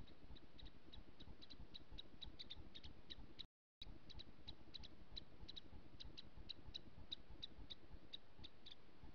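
Faint night ambience: a steady run of short, high chirps, several a second in an uneven rhythm, over a low rumbling noise. The sound drops out for a moment about three and a half seconds in, where the recording is cut.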